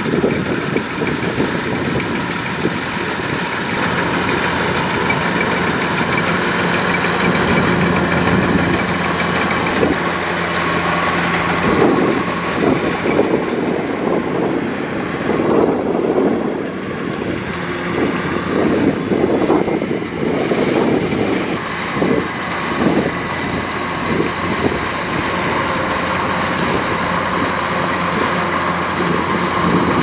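Kubota DC-105X rice combine harvester running steadily while cutting, its engine and threshing machinery making a continuous mechanical drone.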